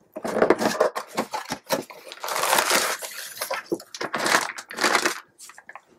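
Cardboard box being opened by hand and a part in a plastic bag pulled out: crinkling and rustling of cardboard and plastic with scattered sharp clicks.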